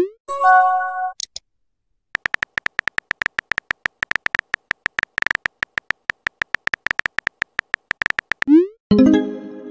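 Chat-app sound effects: a short rising tone and a synthesized chime as a message is sent, then fast, steady key-tap clicks as the next message is typed. Near the end another rising tone and chime follow as that message is sent.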